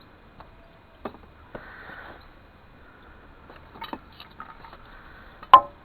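A few light knocks and clicks, with one sharp clink about five and a half seconds in that rings briefly.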